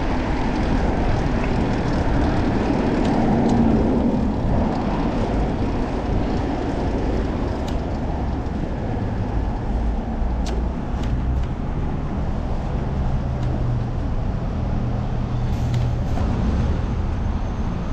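Steady low rush of wind on a chest-mounted action camera, mixed with road traffic noise, from a bicycle ride. It swells briefly a few seconds in.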